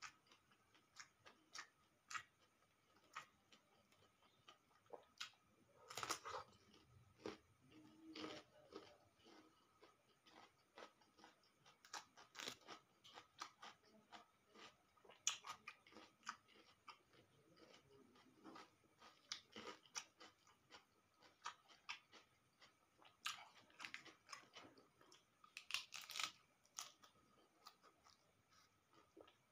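A person chewing food close to the microphone: rice, omelette and raw vegetables such as cabbage leaves, eaten by hand. Soft mouth clicks and crunches throughout, with a few louder crunchy bites.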